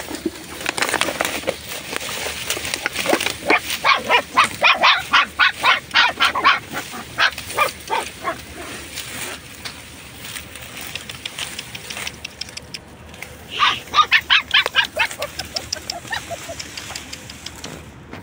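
Puppy yelping in rapid runs of short, high yelps, about four or five a second: a long run a few seconds in and a shorter one near the end.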